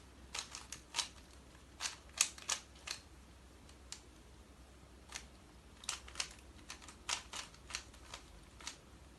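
Rubik's cube being twisted quickly by hand, its plastic layers clicking as they turn, in quick bunches of a few clicks with short pauses between.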